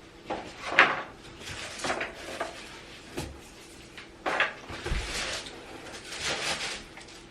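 A mini refrigerator being unpacked from its box: irregular scraping and rustling of the packing, with a low knock about five seconds in.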